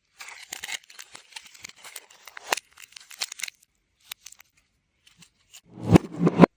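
Food and packaging handling sounds played in reverse: about three seconds of crackly rustling and clicks, then a louder, lower sound with a pitched buzz near the end.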